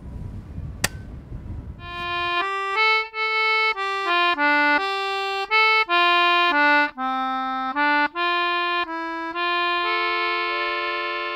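One sharp click just under a second in, over faint outdoor noise. Then closing music starts about two seconds in: a simple tune of held notes played one at a time, ending on a longer held chord.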